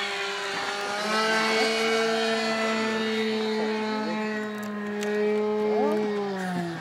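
Model Piper Cub's engine running with the aircraft held on the ground: one steady engine note that rises as the throttle is opened about a second in, holds, then drops back as it is throttled down near the end.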